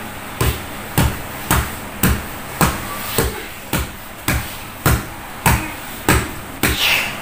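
A steady run of sharp knocks, evenly spaced at about two a second, a dozen or so strokes in all.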